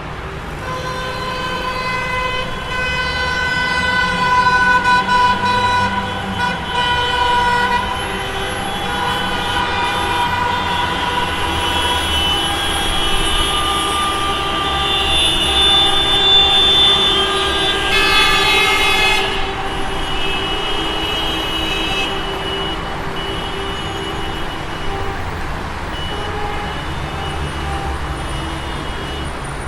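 Urban traffic jam: many car horns honking in long, overlapping blasts over the rumble of idling engines, with a burst of several horns together a little past the middle.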